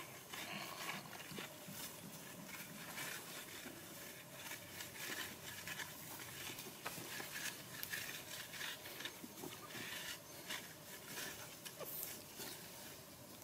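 Loose earth being scraped and scooped by hand at the bottom of a dirt trench: a busy run of irregular short scrapes and scuffs.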